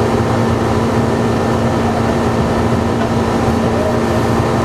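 Steady hum of a 1981 Cadillac Sedan DeVille running, its 368 V8 idling with the heater blower fan on.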